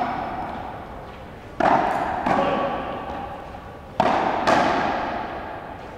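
Frontenis rally: the rubber ball smacks off the strung racquets and the frontón wall, four sharp hits in two pairs about half a second apart, each ringing out with a long echo in the enclosed court.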